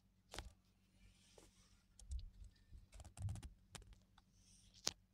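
Faint scattered clicks and soft taps, bunched together about three seconds in, with one sharper click near the end.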